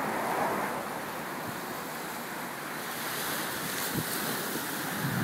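Steady wash of the sea against shoreline rocks, mixed with wind on the microphone. A single brief knock comes about four seconds in.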